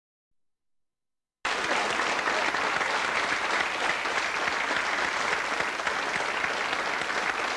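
Studio audience applauding, a steady dense clapping that cuts in suddenly after about a second and a half of silence.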